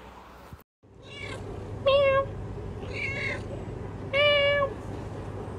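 A cat meowing four times in short calls, the second and fourth the loudest.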